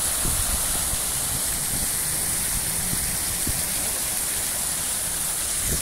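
Fountain jets splashing into a stone basin: a steady rushing spatter of falling water.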